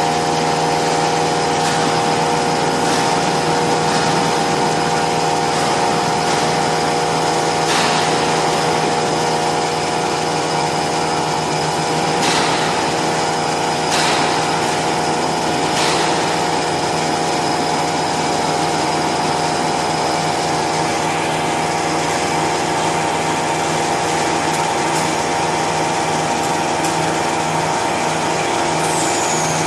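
XH7145/VMC650 CNC vertical machining centre running with a steady multi-toned whine, with a few short ticks along the way.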